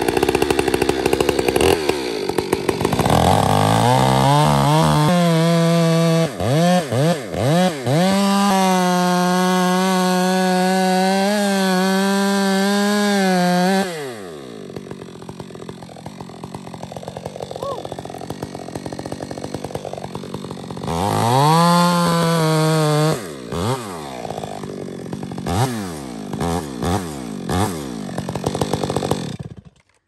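Two-stroke chainsaw cutting a tree's face notch. The engine revs up to full throttle and holds there with a few brief dips, drops back to idle about fourteen seconds in, then revs again about twenty-one seconds in with several quick throttle blips before shutting off near the end.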